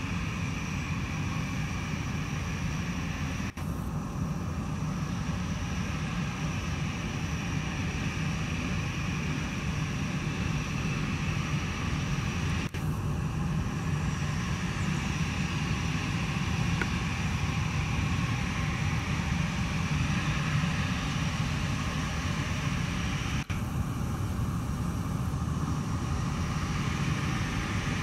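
Airbus A320's twin jet engines running at low taxi power: a steady high whine over a low rumble, growing a little louder in the second half as the airliner comes closer, broken by three very brief dropouts.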